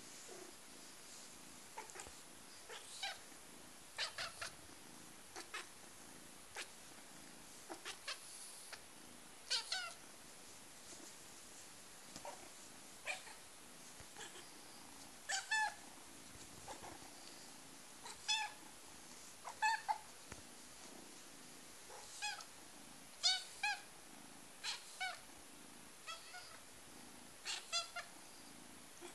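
A kitten making short, high-pitched squeaky mews, often two or three in quick succession, every second or two.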